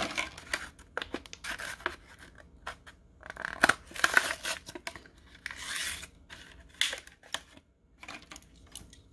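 A Hot Wheels blister pack being torn open by hand: the cardboard card backing ripping and the clear plastic blister crackling, in several short bursts with pauses between.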